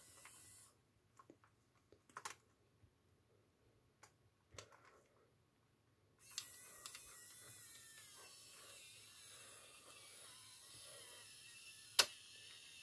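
A few light clicks of wiring being handled, then from about six seconds in the RC dozer's two small electric drive motors running the newly fitted track steadily and faintly. A single sharp click comes near the end.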